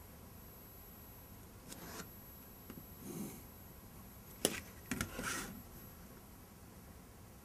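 Faint sounds of drawing with a pencil and a plastic set square on paper: a few short scratchy strokes and rustles, and sharp clicks about halfway through, the loudest at about four and a half seconds, as the set square is moved and set down.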